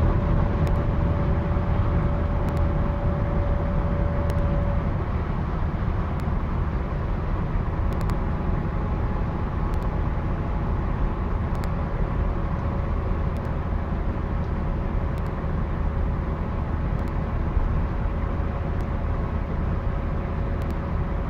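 Steady engine and road noise of a car on the move, a constant low rumble. A thin steady whine sits above it, fading out about five seconds in and coming back about halfway through.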